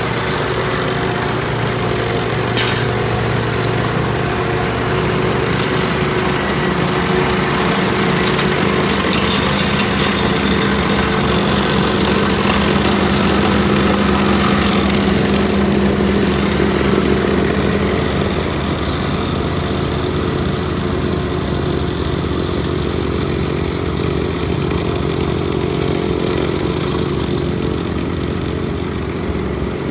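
Engine of heavy road-paving machinery running steadily, with a few sharp clanks in the first half.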